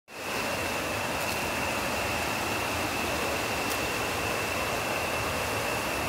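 Shallow rocky stream rushing steadily over boulders and stones, with a steady high-pitched tone running under the water noise.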